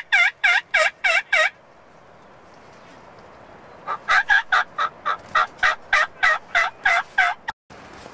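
Turkey yelps: a short run of evenly spaced calls, about four a second, then after a pause of about two seconds a longer run of more than a dozen, cut off suddenly near the end.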